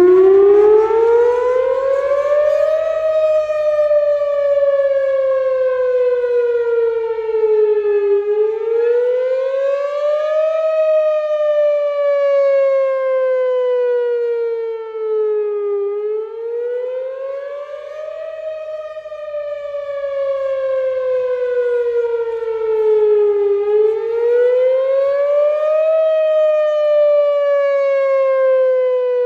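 Whelen Vortex R4 tornado siren sounding its wail on a test, very loud. It starts abruptly and climbs in pitch over about three seconds, then keeps sliding slowly down and quickly back up, about every eight seconds.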